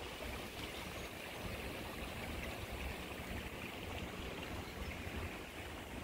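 Steady hiss of running water, with a light flutter of wind on the microphone underneath.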